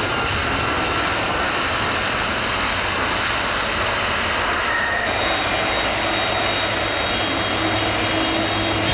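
Airbus A300-600ST Beluga's turbofan engines running with a steady rushing noise during its landing roll on a wet runway. The sound shifts slightly about five seconds in.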